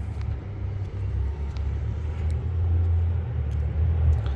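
Low, uneven outdoor rumble with no distinct events, swelling a little past the middle.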